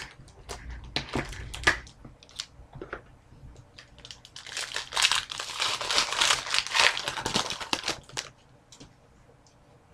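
Trading cards and their pack packaging being handled, with light clicks and taps. About four seconds in come some four seconds of crinkling and rustling.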